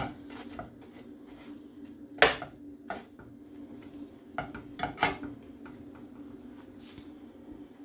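Metal spatula knocking and scraping against a nonstick frying pan while bread slices fry, a few sharp clinks with the loudest about two seconds in. A steady low hum runs underneath.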